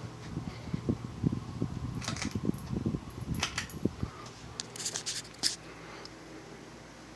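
PCI 42-inch ceiling fan running with a steady motor hum, under a run of irregular knocks and clicks over the first five seconds or so.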